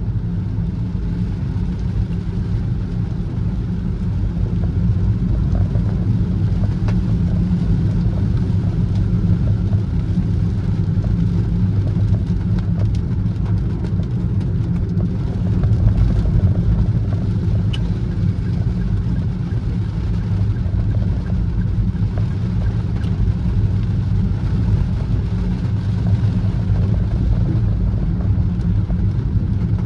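Car driving steadily: a constant low rumble of engine and road noise.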